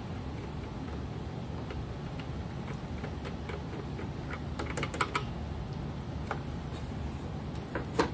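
Scattered light clicks and taps of a screwdriver, screws and the plastic housing of a 7R beam sharpy moving-head light being unscrewed and opened, the sharpest about halfway through and near the end, over a steady low hum.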